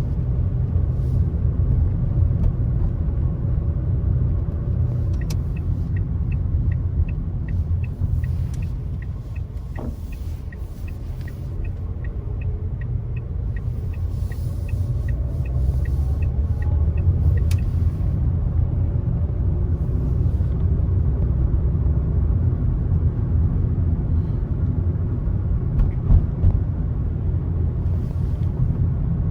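Car road and engine rumble while driving, easing off about a third of the way in and building again. About five seconds in a click starts a turn indicator ticking about twice a second for some twelve seconds, ended by another click.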